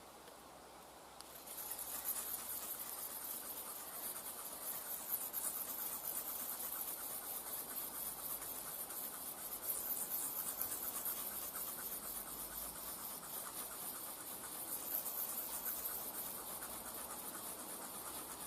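Leatherman Signal's knife blade being scraped back and forth on a natural rock as a sharpening stone, a long run of quick gritty strokes that starts about a second and a half in. The blade is grinding down an edge that has been dulled by cutting tin cans.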